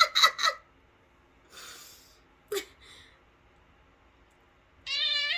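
A girl making silly vocal noises: a quick run of short, high-pitched squeaky bursts at the start, a breathy sound and one short yelp in the middle, then a long high warbling tone starting near the end.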